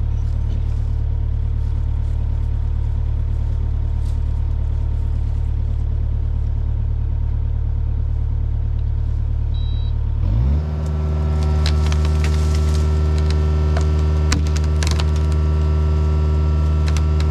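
Heavy machine's engine idling with a steady low hum, then throttled up about ten seconds in to a steady higher-revving run, with scattered clattering knocks; the machine is being readied to push the tree over and break the holding trigger.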